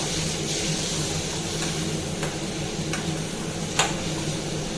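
Chopped onions and tomatoes sizzling in hot oil in a pan while being stirred, with a spatula clicking against the pan several times.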